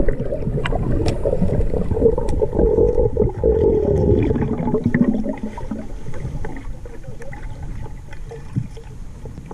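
Underwater sound picked up by a submerged camera: a muffled, low rush of moving water with scattered clicks, growing quieter in the second half.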